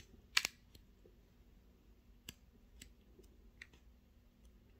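Paper sticker-book pages being turned by hand: one brief papery flap about half a second in, followed by a few faint light clicks and taps as the book is handled.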